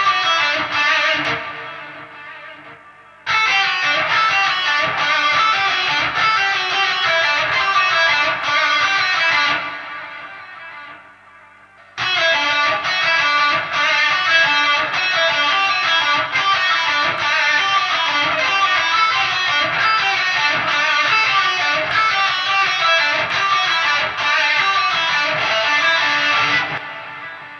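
Electric guitar with a high-gain lead tone playing fast solo runs through an amp-simulator plugin, in three phrases. After each of the first two phrases the notes die away into a short pause, and the last phrase fades near the end.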